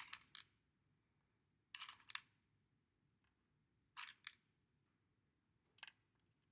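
Small pegs clicking and rattling as a hand picks them out of a wooden tray and pushes them into the holes of a wooden pegboard: four short clusters of clicks about two seconds apart.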